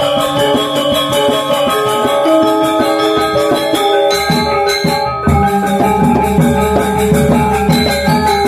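Balinese gamelan gong orchestra playing a slow lelambatan piece: bronze metallophones and gong-chimes ring out held tones over a fast, even pulse of crisp cymbal strokes. About five seconds in a deep low stroke comes in and keeps ringing under the ensemble.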